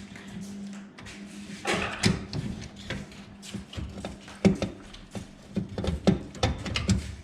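Irregular knocks and clanks of metal hardware being handled and fitted, about a dozen sharp knocks from a couple of seconds in, over a steady low hum.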